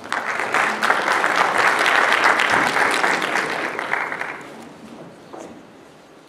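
Audience applauding: the clapping starts suddenly, holds for about three seconds and dies away after about four and a half seconds.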